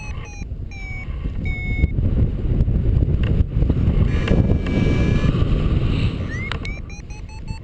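Wind buffeting the microphone in paragliding flight, with a flight variometer beeping over it in short, evenly spaced pitched beeps. The beeps thin out midway and pick up again, quick and steady, near the end.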